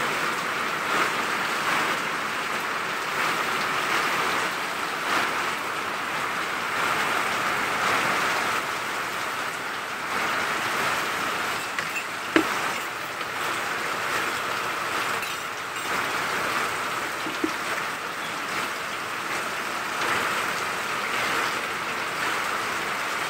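Heavy rain falling steadily on a concrete yard and potted plants, an even hiss of rain with a couple of sharp taps partway through.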